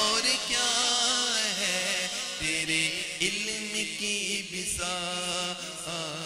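Male voices chanting a Punjabi devotional kalam in long, wavering melodic lines.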